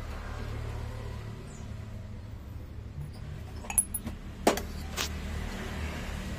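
Small metal gas-stove parts being handled and set down, with a few sharp clinks about four to five seconds in, over a low steady hum.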